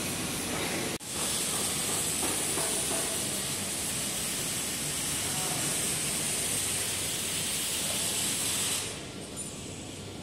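A CNC vertical band-saw log-resawing machine and workshop machinery running, a steady noise with a strong high hiss. It breaks off for an instant about a second in, and the hiss drops away about nine seconds in, leaving a lower machine noise.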